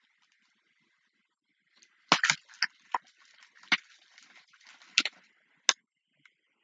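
A series of sharp, irregular clicks and knocks, about eight of them, starting about two seconds in and ending near the end, with faint hiss between.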